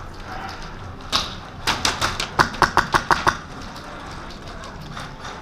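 Airsoft gun firing: one sharp shot about a second in, then a quick string of about ten shots over about a second and a half.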